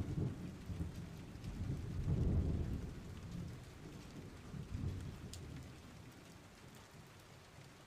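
Rain falling with low rolling rumbles like thunder, which swell and fade, loudest about two seconds in, over a faint steady patter.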